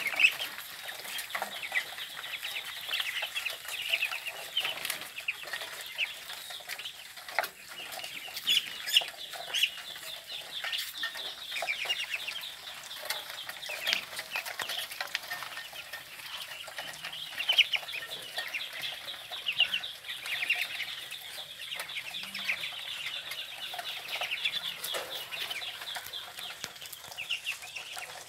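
A flock of young Muscovy ducks peeping constantly, many short high calls overlapping, with scattered sharp clicks and taps.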